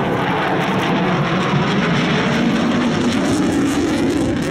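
Panavia Tornado's twin RB199 turbofan engines, heard as loud, steady rushing jet noise while the aircraft flies its display.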